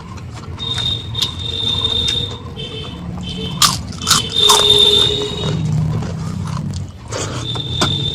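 Close-miked eating: chewing with wet mouth clicks and crisp crunches. A thin, high, steady tone comes and goes three times behind it.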